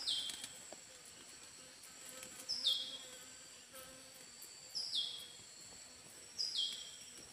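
Forest ambience: a steady high insect drone, and a high call that steps down in pitch and holds briefly, repeated four times about two seconds apart.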